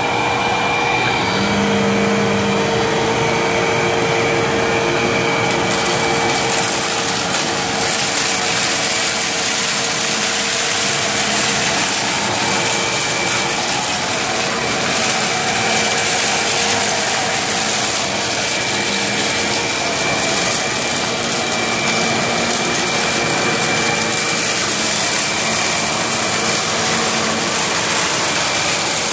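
Vacuum cleaner running steadily, a loud motor drone with a steady whine. About five or six seconds in, its hiss becomes brighter and stronger.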